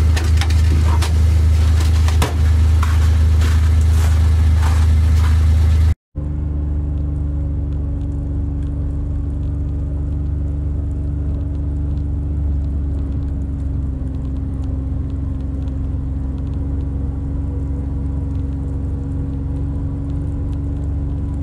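Kawasaki Mule Pro-FXT side-by-side's engine running steadily as it drives along a snowy trail, a low drone. Light knocks and rattles ride over it in the first few seconds. The sound drops out for a moment about six seconds in, then the drone carries on smoother and even.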